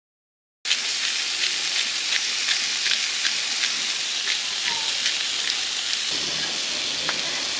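Burgers frying in a hot pan: a steady sizzling hiss with frequent small crackles and pops, starting suddenly less than a second in.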